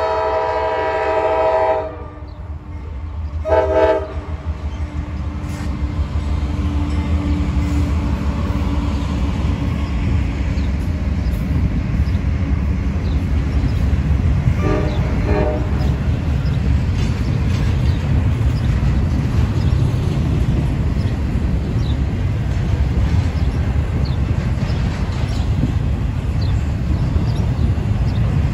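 Norfolk Southern freight train's air horn, led by a GE Dash 9-40CW locomotive: a long blast ends about two seconds in, a short blast follows near four seconds, and a fainter blast comes around fifteen seconds. Under the horn, a double-stack intermodal train gives a steady low rumble as it rolls past.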